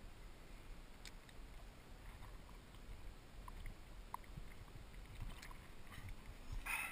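Faint low rumble of wind on the microphone, with a few light handling knocks as the camera is moved, and a brief rustle near the end.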